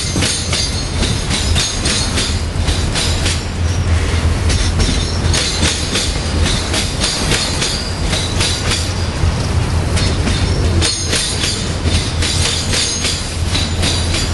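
Union Pacific manifest freight train's enclosed auto-rack cars rolling past close by: a steady low rumble with frequent irregular clacks and clicks from the wheels on the rails.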